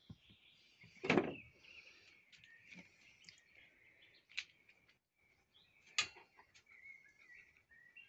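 Birds chirping and singing steadily, with a few sharp knocks close by. The loudest knock is about a second in, another about six seconds in.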